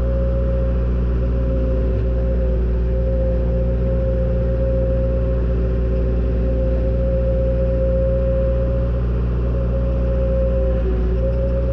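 John Deere 270 skid steer's diesel engine running steadily while the machine works, heard from inside the operator's cage: a low, even drone with a steady high whine held over it.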